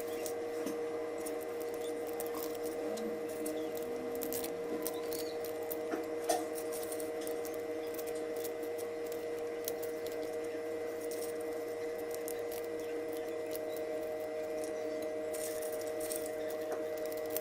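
Faint crackling, rubbing and clicking as the crisp skins are peeled off fried garlic cloves by hand, over a steady hum, with one louder tap about six seconds in.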